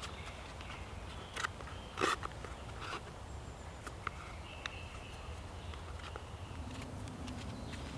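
Spruce-root cord pulled through the stitching holes of a birch bark container: a few short crackles and scrapes of bark and root, the loudest about two seconds in, over a low steady background rumble.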